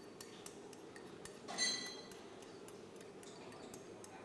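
Faint scattered taps and clicks of dishes being handled, with one louder ringing clink of crockery about a second and a half in.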